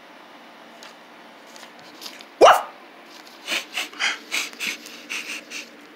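A dog gives one short bark that falls in pitch, then sniffs in a quick run of short, hissy puffs.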